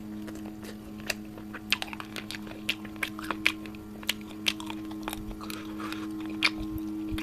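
Close-up chewing of a mouthful of chicken kosha: wet, irregular smacking clicks of lips and tongue, a few each second, over a steady low hum.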